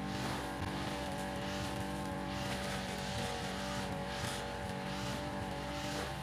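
Grass trimmer engine running steadily as the nylon cutting line sweeps through grass, with a swishing hiss rising on each pass, about once every second or two.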